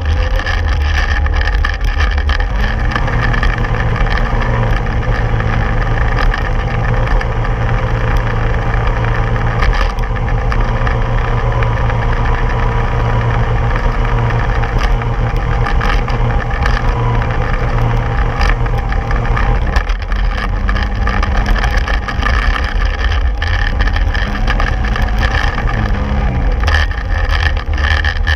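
Polaris snowmobile engine running under throttle, heard close up from the sled-mounted camera; its pitch steps up a few seconds in, drops back about twenty seconds in, and rises and falls again near the end.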